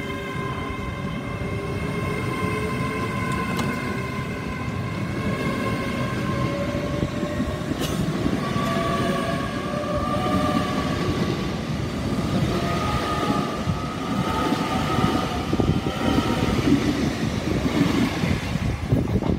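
LNER Azuma train pulling away close by. Its traction motors whine in several steady tones that rise slowly in pitch as it gathers speed, over a heavy rumble of wheels on rail.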